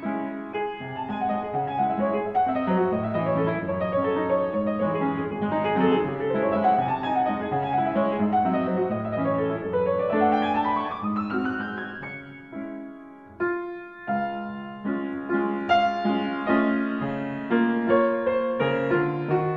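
Background piano music, with flowing arpeggio runs that climb and fall, then thins to separate struck notes and chords about twelve seconds in.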